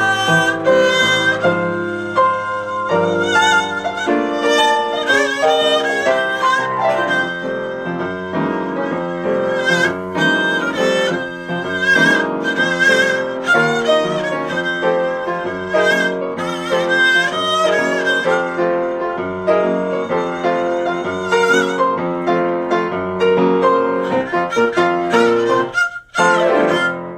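Violin playing with vibrato over piano accompaniment in a contemporary chamber piece. Near the end the music breaks off for a moment, sounds a last time and stops, closing the piece.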